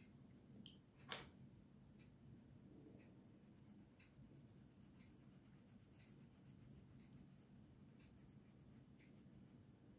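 Orange coloured pencil rubbing faintly on drawing paper, shading in a small area with short strokes. A single sharp click comes about a second in, and faint ticks recur about once a second.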